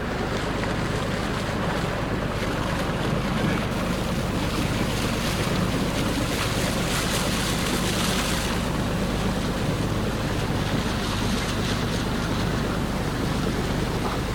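A boat's engine running steadily under way, with water rushing along the hull and wind on the microphone. A louder hiss of wind or spray rises from about six seconds in and drops away around eight and a half seconds.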